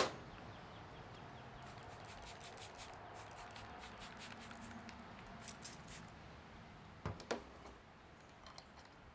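Trigger spray bottle spritzing racks of smoked baby back ribs: a run of quick short sprays, then another shorter run. A couple of louder clicks about seven seconds in.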